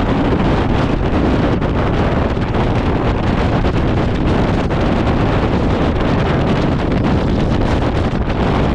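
Gale-force mountain wind buffeting the microphone: a loud, steady rush of noise without letup.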